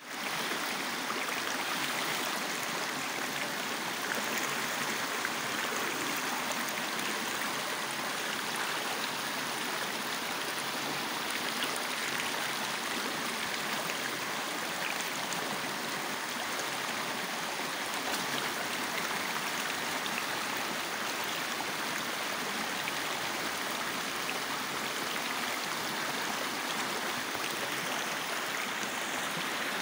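Shallow rocky stream rushing and splashing over boulders, a steady even rush of water.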